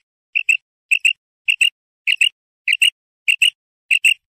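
Female common quail calling: a steady run of short, high double notes, about one pair every 0.6 seconds, stopping just before the end. This is the female's call that hunters use to lure male quail.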